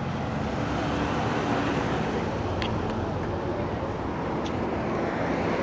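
Steady road traffic noise, a continuous low rumble of passing vehicles, with a couple of faint clicks.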